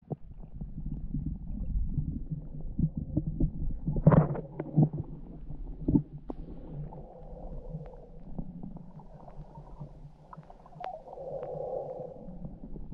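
Muffled underwater sound picked up by a submerged camera: a low rumble of moving water, with a cluster of sharp knocks about four seconds in and another near six seconds.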